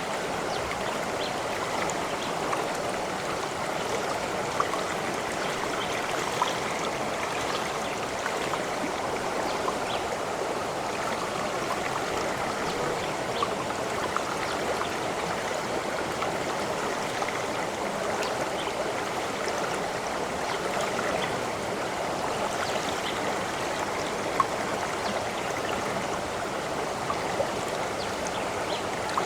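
Stream water running and gurgling steadily over rocks, with scattered small splashes and drips.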